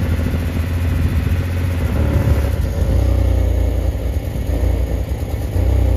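Gasoline car engine running with a steady low rumble while it burns off diesel left in its fuel system after a misfuelling, sending out thick white exhaust smoke.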